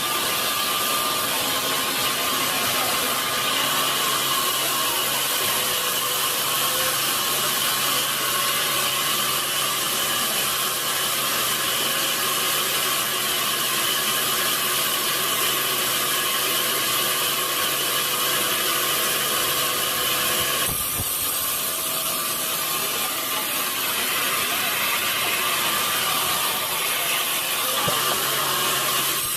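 A sawmill saw cuts steadily through a large log, a continuous mechanical whine with hissing noise. About two-thirds of the way through, the hiss and tone change abruptly.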